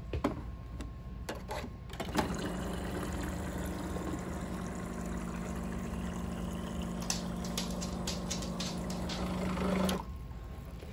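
Water cooler dispenser running, with a steady motor hum and water pouring into a plastic bottle. It starts about two seconds in, swells slightly near the end and cuts off suddenly as the tap is released.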